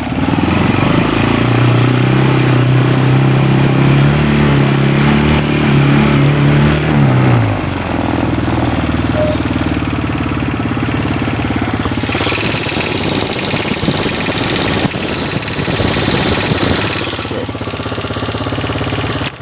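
Roketa ATV engine running with a tapping, rattling noise that the owner finds too loud for a brand-new machine. It holds a steady pitch, drops about seven seconds in as the machine slows, runs on rougher, then cuts off at the very end.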